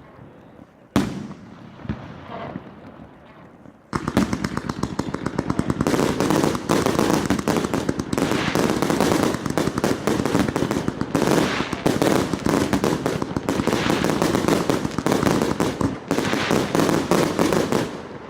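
FP-B418 100-shot firework battery firing: a few separate cracks at first, then about four seconds in it breaks into a fast, unbroken string of shots and bursts, many a second.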